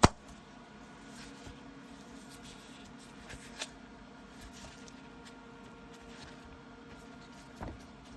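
A sharp knock right at the start, then a few faint clicks and taps of objects being handled, over a steady faint hum.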